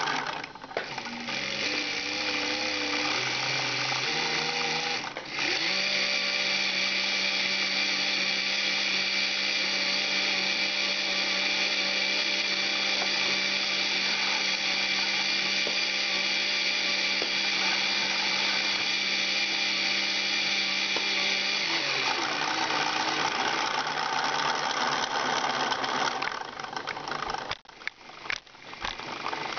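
LEGO electric motors and gear train of a kite-painting machine running with a steady mechanical whine. The pitch shifts a few times in the first five seconds, holds steady, changes again about 22 seconds in, and dips briefly near the end.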